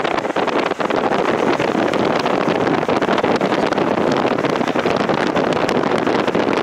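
Car driving on a gravel road: steady rush of tyre and wind noise, with a dense crackle of loose stones under the tyres.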